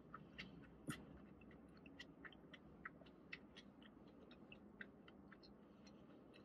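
Faint, close-miked chewing of a mouthful of chicken burrito bowl: soft, irregular wet mouth clicks and smacks, a few each second, one a little louder about a second in.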